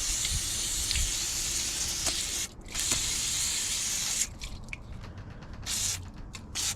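Degreaser cleaner being sprayed onto dirty slip rings and brushes, a long steady hiss that breaks off briefly about two and a half seconds in, resumes, then gives way to several short spurts near the end.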